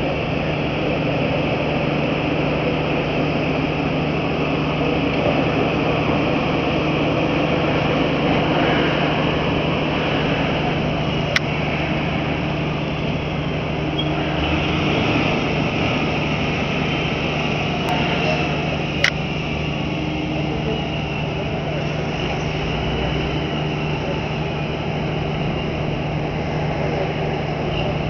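Steady drone of diesel engines as a tractor unit tows a semi-trailer across the quay, with a constant low hum underneath. Two short sharp clicks come about a third and about two-thirds of the way through.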